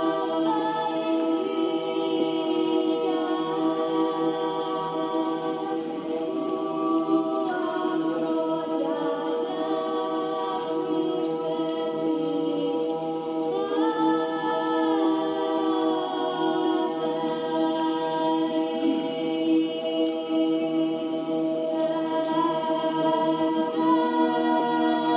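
Music of several voices singing a cappella, holding long chords that move to new notes every few seconds.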